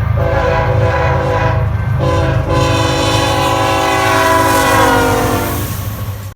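Freight diesel locomotive's air horn blowing long blasts over the loud rumble of the passing train, with two short breaks about two seconds in. Its pitch slides lower near the end, then the sound cuts off suddenly.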